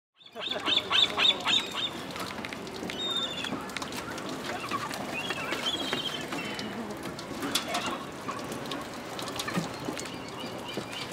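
Gulls calling over a crowd of seabirds: a quick run of about five sharp, loud calls about half a second in, then a busy mix of shorter calls with scattered clicks and knocks.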